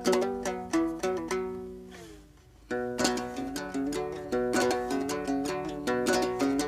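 Background music: a plucked string instrument playing a quick run of notes. It fades out about two seconds in and starts again with a fresh phrase a moment later.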